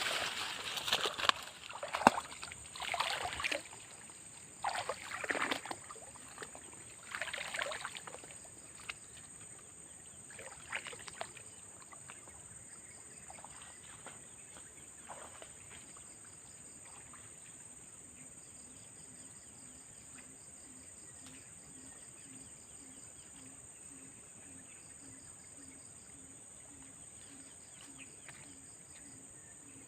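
Outdoor swamp ambience: insects keep up a steady high drone with a pulsing chirp, and from about halfway a low pulsing call repeats about twice a second. It follows a series of short rustling, splashing-type noises in the first ten seconds or so, the loudest about two seconds in.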